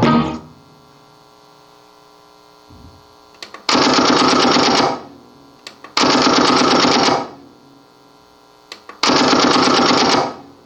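A canned sound effect from a mixer's built-in effects bank, triggered three times by button clicks. Each time it plays an identical loud, dense, rapid stuttering burst of about a second, over a low hum.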